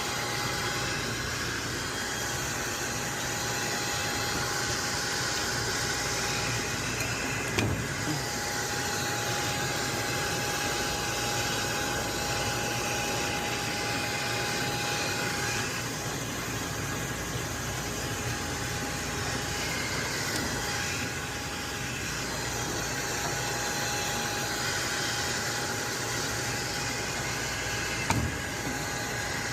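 Cooling tower running on its newly replaced fan motor: a steady rushing noise with a faint steady whine. Two short knocks come through, one about eight seconds in and one near the end.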